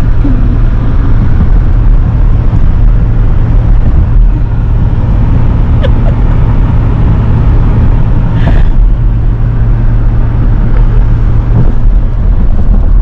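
Steady road and engine noise heard inside a moving vehicle's cabin: a loud, continuous low rumble with a steady low hum. There is a faint click about six seconds in and a brief rustle about eight and a half seconds in.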